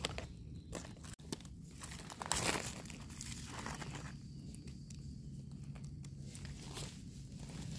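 A knife blade scraping soil and flesh from the base of a red-capped russula mushroom's stem, with dry leaf litter rustling under the hands. Short scattered scrapes and crackles, the loudest about two and a half seconds in, quieter for a couple of seconds past the middle.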